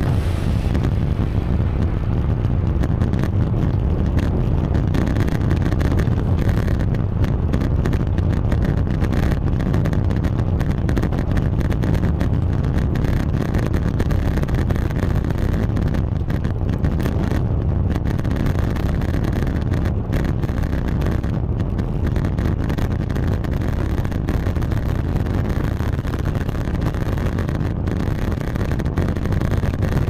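Steady low rumble of wind on the microphone of a neck-mounted action camera.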